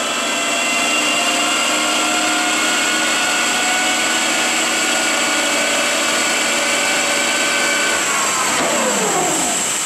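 1969 Lucas 441B-72 horizontal boring mill's spindle and headstock gearing running with a steady, high, many-toned whine. About eight seconds in, the pitch falls steadily as the spindle slows down toward a stop.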